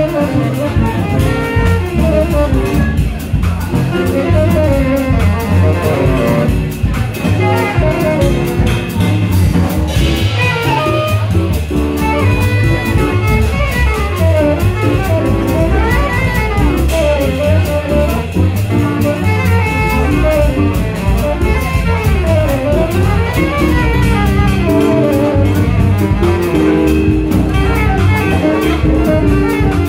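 Live small jazz group playing: upright double bass, keyboard and drum kit with cymbals.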